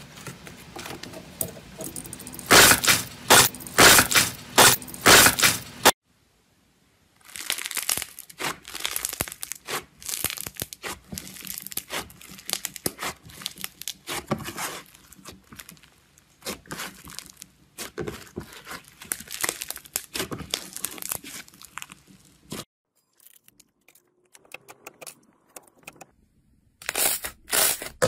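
Slime being squeezed and pulled apart by hand, making strings of crackling, tearing pops. The loudest, sharpest crackles come in the first six seconds as green slime is pressed through a wire mesh; softer crackling and tearing follow as a fluffy slime is pulled apart, and loud crackles return near the end.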